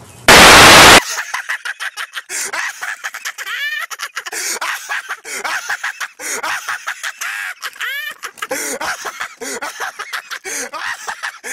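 A loud burst of static-like hiss for under a second, cutting off abruptly, then chickens clucking and calling over and over, many short rising-and-falling calls overlapping.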